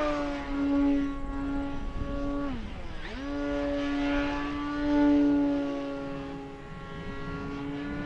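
Electric motor and propeller of an FMS 2000mm DeHavilland Beaver RC model plane whining steadily in flight. About two and a half seconds in, the pitch dips sharply and comes straight back up. A low wind rumble runs underneath.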